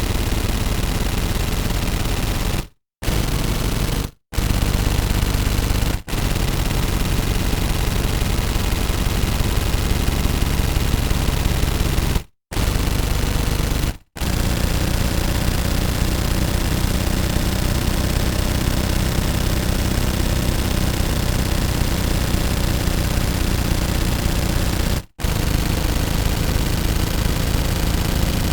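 Automatic gun firing in long continuous bursts of rapid shots. The bursts break off briefly with short silent gaps about 3, 4, 6, 12, 14 and 25 seconds in.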